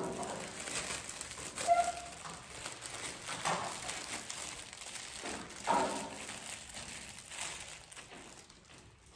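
Clear plastic gift wrapping crinkling and rustling in the hands as it is pulled off a small potted plant, in irregular crackles, with a couple of brief voiced murmurs about two and six seconds in.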